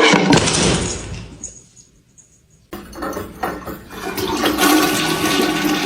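Loud rushing water in two stretches: one dies away over the first second and a half, and another starts abruptly about two and a half seconds in.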